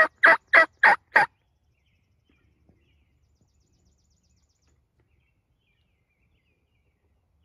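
A loud series of turkey yelps, about three a second, that stops a little over a second in.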